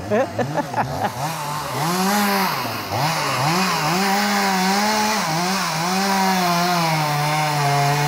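Gasoline chainsaw cutting a felled tree trunk into rounds. The engine revs up and drops back several times in the first three seconds, then holds a steadier, slightly wavering pitch as it cuts.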